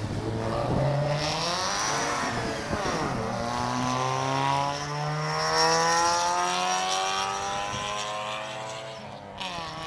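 Race car engine accelerating, its pitch rising steadily and its sound fading as the car pulls away. A thin high whistle runs over the engine note.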